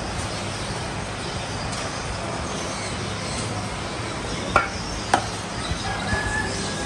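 Steady background hiss of a busy street, with two sharp metallic clinks about half a second apart a little past the middle: steel bowls and a ladle knocking together.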